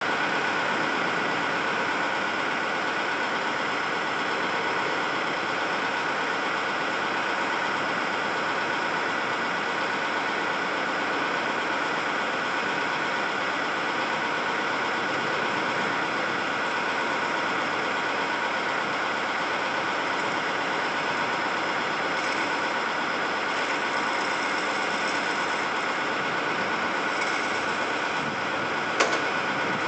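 An engine idling steadily, with one sharp click near the end.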